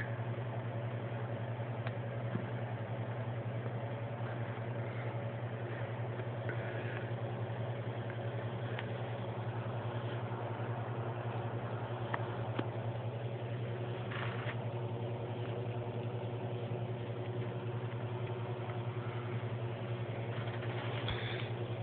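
Domestic cat purring steadily close to the microphone, a continuous low rumble.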